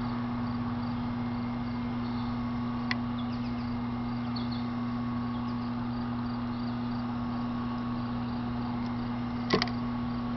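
Industrial sewing machine's clutch motor running with a steady low hum while the needle is not sewing. A sharp click about three seconds in and a short knock near the end.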